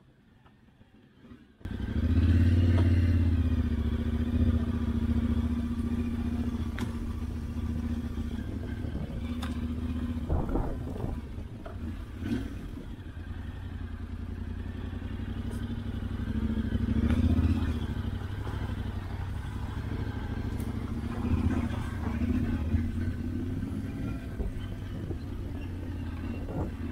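Yamaha Ténéré 700's parallel-twin engine running steadily under way, cutting in suddenly after near silence and swelling louder a few times.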